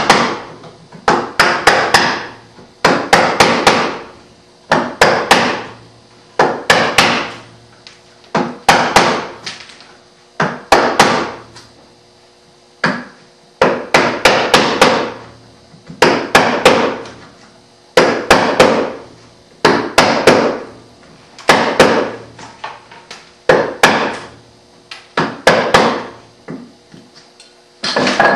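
Mallet striking a chisel to chop out the waste of a half-blind dovetail socket down to the scribe line. The blows come in quick groups of two to four sharp knocks, with a pause of about a second between groups.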